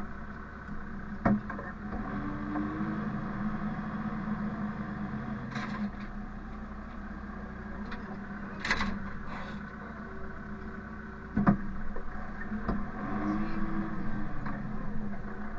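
Engine running steadily at a low, even hum. There are two sharp knocks, one about a second in and one about three-quarters of the way through, plus a brief rising-and-falling tone twice.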